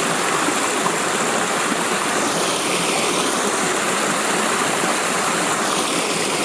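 Creek water pouring over a waterfall: a steady, unbroken rush.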